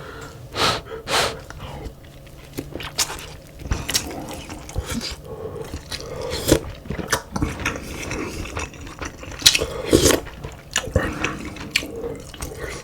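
Close-miked eating sounds: irregular utensil clicks and wet, dripping sounds of stew broth being scooped and slurped.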